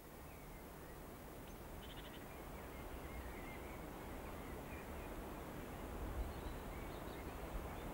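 Wind blowing through tall grass: a steady hiss with an uneven low rumble of wind on the microphone, slowly growing louder. Faint, short, high chirps come and go through it.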